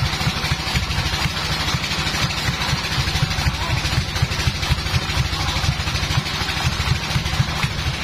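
Sawmill's engine running steadily with a fast, even low throb, not under cutting load.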